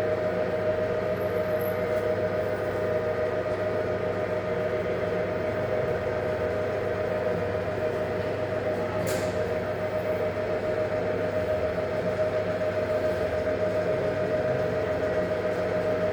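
Electric drive motor and gearing of a Gieseking SD 1 welding positioner running steadily: a constant whine with a steady hum beneath it, and one brief high chirp about nine seconds in.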